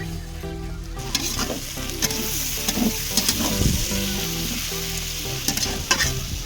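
Food sizzling as it fries in hot oil and is stirred, with repeated sharp scrapes and clicks of the stirring utensil against the pan. The sizzle swells about a second in and drops away near the end.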